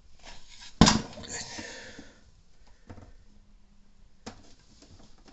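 Handling noise: a sharp knock about a second in, then about a second of rustling, and a couple of faint clicks later.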